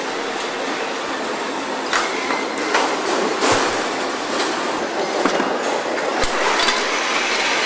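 Car assembly-line factory noise: a steady machinery din with scattered sharp metallic clanks and knocks, about half a dozen of them.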